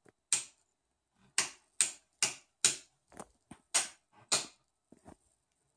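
A wall light switch flicked on and off again and again with no result because the power is out: about ten sharp clicks, irregularly spaced over some four seconds.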